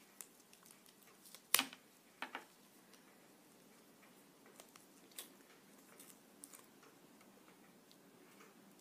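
Scattered light clicks and rustles of a new Lightning cable's packaging being handled and opened, with one sharper click about one and a half seconds in and a couple more just after.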